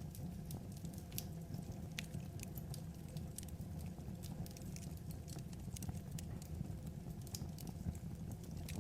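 Wood fire crackling: irregular sharp pops and snaps of burning logs over a steady low rumble.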